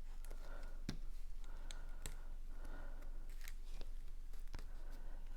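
Cardstock being handled and folded by hand, with several separate sharp light clicks and taps of paper.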